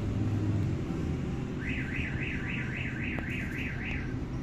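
A repeating electronic alarm warble, a very regular run of rising-and-falling chirps at about four a second, starting a little over a second in and stopping near the end, over a steady low hum.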